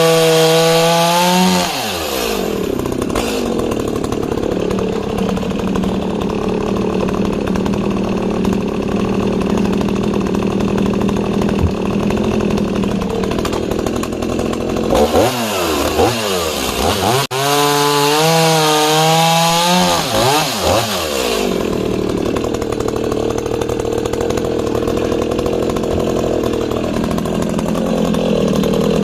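Echo CS-5100 two-stroke chainsaw cutting discs from a log. It revs high and free at first, drops to a lower, labouring pitch as it bites into the wood about two seconds in, and holds there. Around the middle it runs back up to full revs and then pulls down into a second cut.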